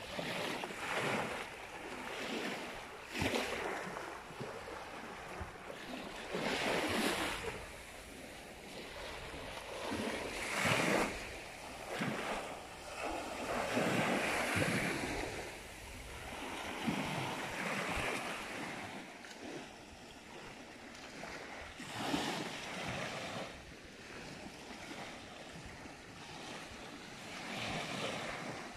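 Small waves breaking and washing up a sandy beach, the surf swelling and ebbing every few seconds.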